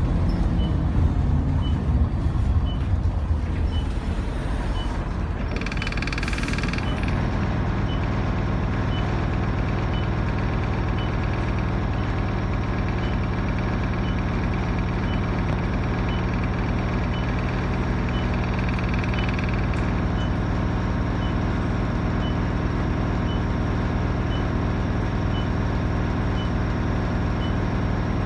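Optare Solo bus's diesel engine heard from inside the saloon: it runs rough and heavy for the first few seconds, then a short air-brake hiss comes about six seconds in. After that the engine idles steadily, with a faint regular tick throughout.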